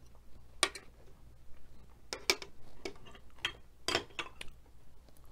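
Close-up mukbang eating sounds: scattered sharp, crisp clicks, about eight in a few seconds, from nacho chips being chewed and a fork working in a small plastic cup of cheese dip.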